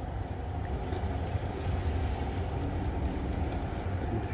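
Steady rumble of nearby highway traffic, with a few faint clicks.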